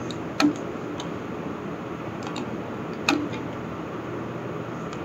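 Two sharp clicks from working the computer, about two and a half seconds apart, over a steady background hiss.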